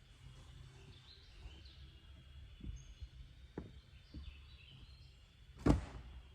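Birds chirping in the woods over a low rumble, with a few soft knocks and one sharp, loud knock near the end.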